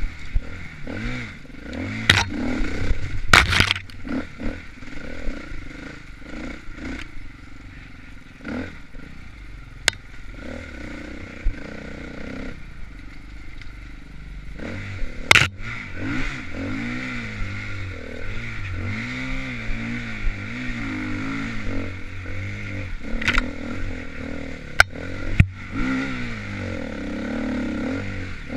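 KTM dirt bike engine running and revving up and down as it is ridden over rough trail, with sharp knocks and clatter from the bike several times. The revs drop back for a while midway, then pick up again.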